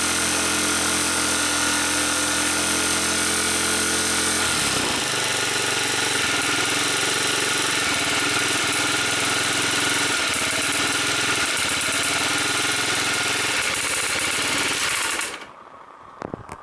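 Honda Zoomer scooter's 49cc four-stroke single-cylinder engine running with loud tappet noise, its note changing about four and a half seconds in, then switched off suddenly near the end, with a couple of faint clicks after. The noise persists with the oil at the correct level, and the mechanic puts it down to a camshaft probably worn and galled from long running without oil changes.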